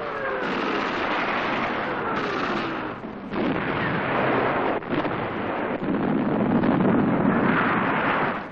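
Artillery battle sound effects: falling whistles of incoming shells over a dense rumble of explosions during the first few seconds, then a continuous din of shellfire that swells to its loudest near the end as a shell bursts.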